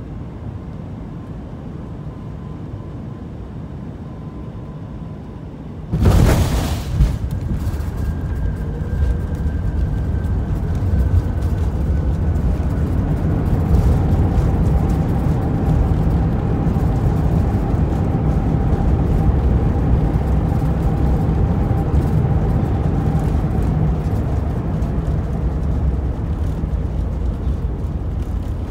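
Inside the cabin of an Airbus A380 landing: steady engine and airflow noise, then about six seconds in a sudden loud thump as the wheels touch down. A louder rumble follows as the airliner rolls and slows on the runway, with a faint whine that falls slowly in pitch and then a steadier one.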